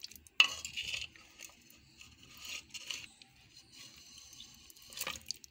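A metal spoon stirring raw mutton, sliced onions, spices, oil and water in a metal pressure cooker: wet squelching and scraping against the pot. There is a loud knock about half a second in and another near the end.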